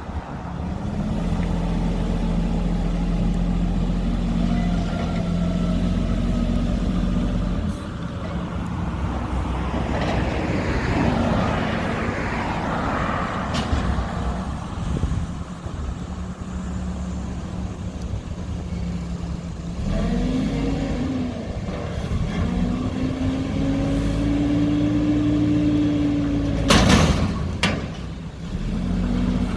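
Mack McNeilus front-loader garbage truck's diesel engine running, with a rushing stretch about ten seconds in. In the second half the engine revs up and holds a higher pitch, twice. A short, loud burst of noise comes near the end.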